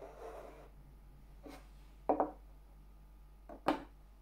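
Small wooden watch boxes handled on a wooden tabletop: a soft rub, then a double wooden knock about two seconds in, and a sharp click near the end.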